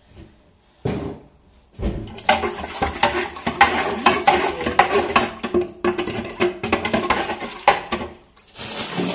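Drink being mixed in a clear plastic pitcher: two single knocks about a second in, then rapid, continuous clattering and scraping of a utensil against the pitcher for about six seconds.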